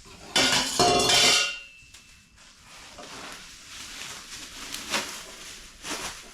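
Steel exhaust pipe bends from an exhaust kit clanging against each other as they are handled: one loud metallic clatter with a high ringing tone that dies away, then a couple of lighter knocks near the end.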